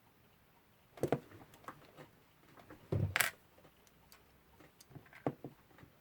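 Small clicks and taps of tweezers and brass clock-movement parts being handled during reassembly, in a few scattered bunches, the loudest a brief rattle about three seconds in.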